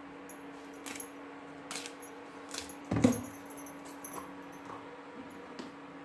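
Light metallic clinks and taps of kitchen utensils, a few spread through, over a steady low hum. A brief voice sound about halfway through is the loudest moment.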